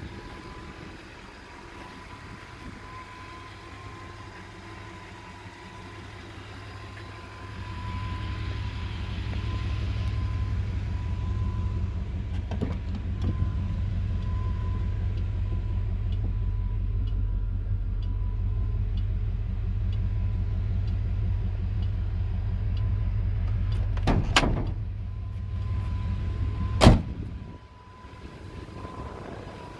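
Low steady rumble around a 1993 GMC Sierra K1500 pickup's cab, with a sharp knock and then a louder one near the end as a door is shut, after which the rumble drops away.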